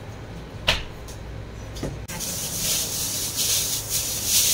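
A single sharp knock just under a second in, then a clear plastic bag crinkling and rustling as it is handled, starting about two seconds in and getting louder.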